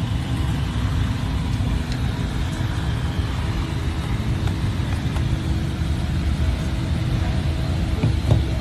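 Steady low rumble with a constant hum from a running engine or motor, with one sharp knock near the end.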